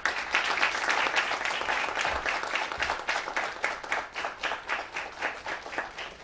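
Audience applauding: dense at first, then thinning out into separate claps and fading toward the end.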